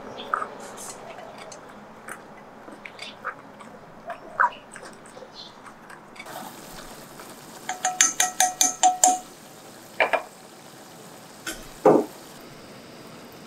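Scattered light clicks and clinks of dishes and utensils. About eight seconds in comes a quick run of about nine ringing clinks, some six a second, followed by a couple of louder knocks.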